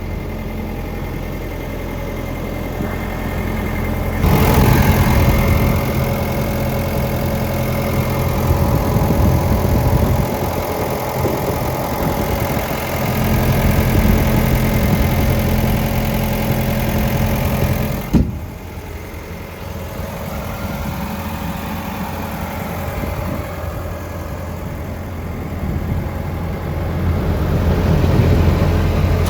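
Komatsu PC78US-8 hydraulic excavator's diesel engine running steadily, growing louder about four seconds in. A single sharp knock past the middle, then the engine runs quieter before picking up again near the end.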